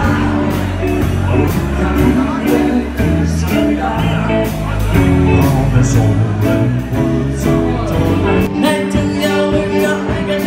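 A band playing a song: a singer over drums with a steady beat, bass and guitar.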